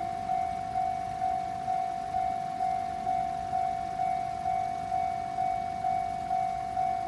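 Japanese railway level-crossing warning bell ringing: a single steady tone struck about twice a second in an even, unbroken rhythm, with a low rumble beneath it.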